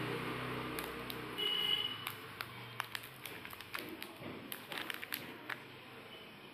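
Metallised plastic biscuit wrapper crinkling in the hand, a run of sharp scattered crackles and light taps as the packet is turned over and set down on a plastic plate.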